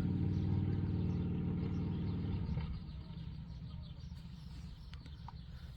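2014 Chevrolet Silverado's engine idling steadily. About two and a half seconds in it drops to a quieter, lower hum.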